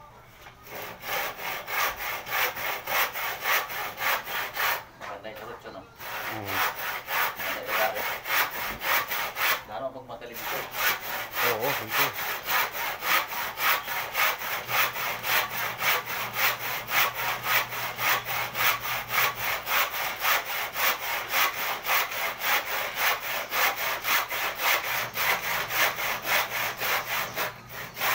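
Hand saw cutting through a wooden board, rasping back and forth at about two to three strokes a second, with two short pauses early in the cut and another near the end.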